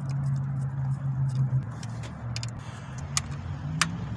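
Hand ratchet and socket working a 10 mm bolt on the engine's valve cover: light metallic ticks, then two sharp clicks a little over half a second apart near the end, over a steady low hum.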